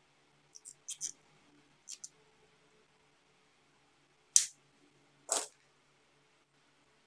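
Nylon zip tie pulled tight with a few small quick clicks, then its spare tail snipped off with side cutters: a sharp snap about four seconds in and a second snap about a second later.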